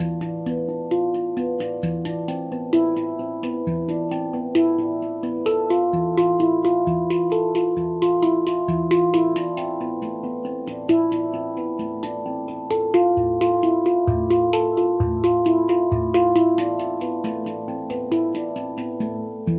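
A Baopan handpan in A2 is being played with the fingers: a continuous flow of struck, ringing metal notes that overlap as they sustain. Deep bass notes come every second or two beneath quicker higher notes.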